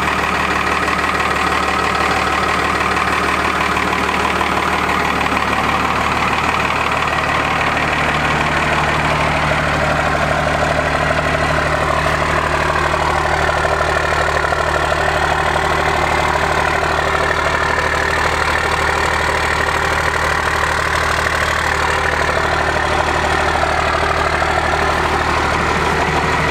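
First-generation Dodge Ram 250's 5.9-litre Cummins 12-valve turbo diesel idling steadily with a diesel rattle, still cold shortly after a start-up following weeks of sitting in freezing weather.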